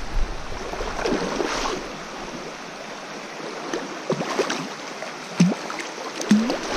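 Shallow river current rushing steadily, with a few short splashes from a hooked trout thrashing at the surface as it is played towards the landing net.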